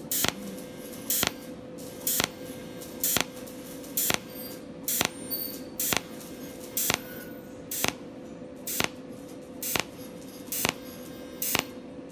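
Cold welding machine firing its welding pulses: a sharp snap repeating evenly about once a second, thirteen in all, over a steady hum.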